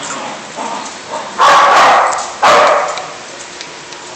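Dog barking: two loud barks about a second apart, a little before the middle, with a couple of softer sounds before them.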